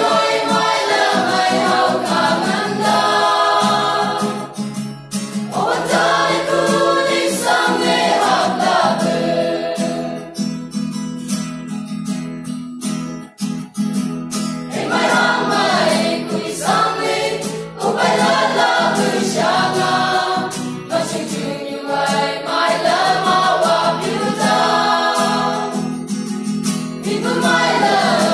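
Mixed choir of men and women singing a gospel song to an acoustic guitar, in phrases with a longer break about halfway through.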